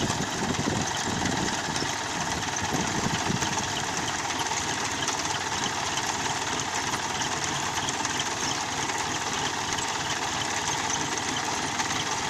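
Tractor engine and onion harvester machinery running steadily.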